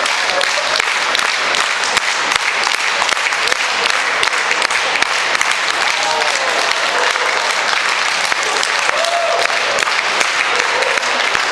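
Audience applauding steadily: dense clapping throughout, with a few voices calling out over it.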